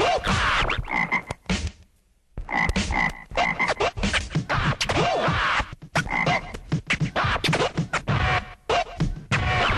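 Turntable scratching: rapid, choppy record scratches with quick sweeping pitch glides, cut up in a fast rhythm, with a brief break about two seconds in.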